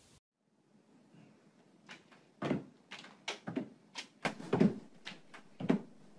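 A door knocking and banging repeatedly, about a dozen irregular knocks over some four seconds, starting about two seconds in.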